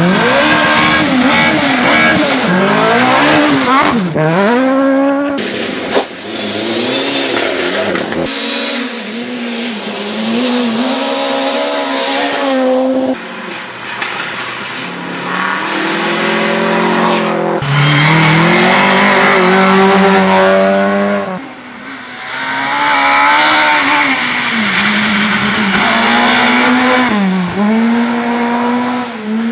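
Rally car engines pulling hard on gravel, their revs rising and falling over and over with gear changes and lifts off the throttle, first a Suzuki Swift rally car and then other cars. The sound jumps abruptly from one car to the next several times.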